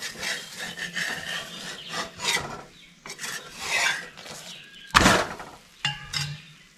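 Steel spatula scraping around the edge of a rice bhakri on a tava, loosening it from the griddle, with one sharp clatter about five seconds in.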